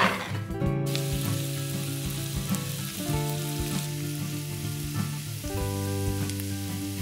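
Diced onion frying in butter and olive oil in a pan, sizzling steadily from about a second in, with a silicone spatula stirring and scraping through it. Background music with held notes plays throughout.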